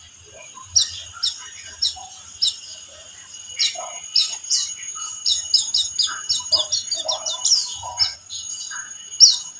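White-eye (pleci, buxtoni race) singing high, sharp chirps. They come spaced about half a second apart at first, then quicken into a fast chattering run from about five seconds in.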